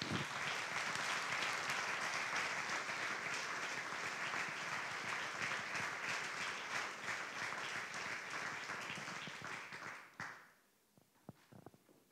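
Audience applauding for about ten seconds, then dying away, leaving a few faint taps.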